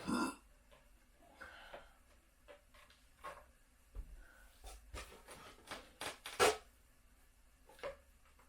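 Scattered rubbing and handling noises in a small room: a louder scrape at the start, then short rustles and light knocks, the loudest about six and a half seconds in.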